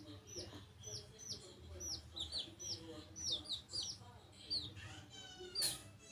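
Young chicks peeping: many quick high chirps, each falling in pitch, often overlapping. Near the end comes a longer call, then a sharp click.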